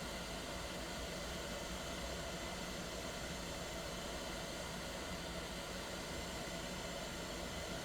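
Hot-air rework (desoldering) gun blowing a steady hiss of hot air onto a small steel gun part, heating it to bring up temper colours for bluing.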